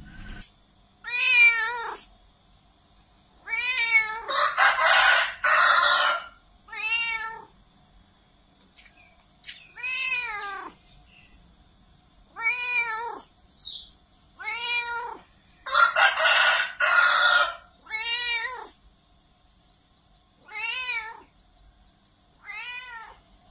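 Domestic cat meowing over and over: short calls that rise and fall in pitch, coming every second or two, with a couple of longer, harsher, raspier calls among them.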